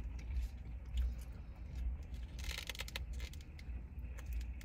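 Steady low hum inside a car cabin, with light crinkling and clicking of paper food wrappers and containers being handled, and a short rustle about two and a half seconds in.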